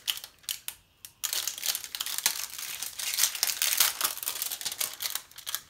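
Clear plastic wrap and a brown paper sleeve crinkling as they are peeled off a new paintbrush by hand. There is a brief pause about a second in, then steady crinkling.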